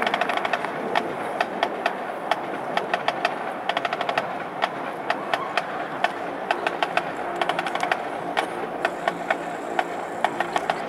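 Marching band percussion playing sharp rim and stick clicks in quick, irregular clusters, with low held notes from the band joining about halfway through.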